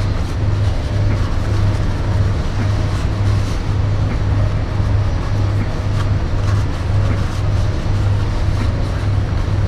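Steady low mechanical hum that pulses a little under twice a second, over an even rushing noise.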